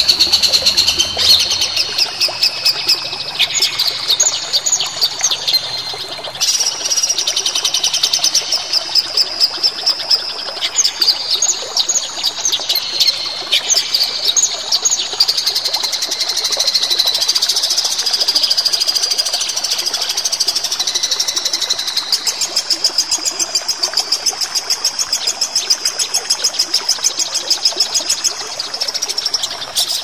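A songbird singing a continuous, high-pitched song of quick chirps and trills, turning into long fast runs of rapidly repeated notes in the second half.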